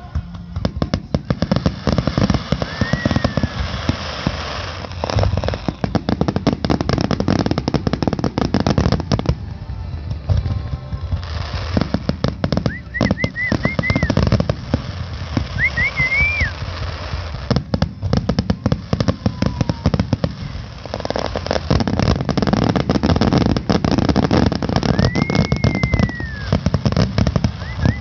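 Fireworks display: a rapid, nearly continuous barrage of shell bursts and crackling, with a short lull about ten seconds in. Several rising-and-falling whistles of climbing shells sound through it, the longest near the end.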